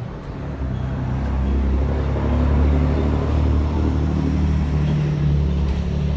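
A motor vehicle's engine running close by over street noise, growing louder after about a second and staying loud.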